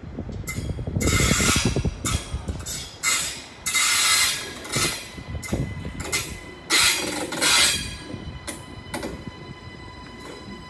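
Train passing close by: a rushing noise that comes in uneven surges, then dies down about eight seconds in to a quieter, steadier sound with faint steady tones.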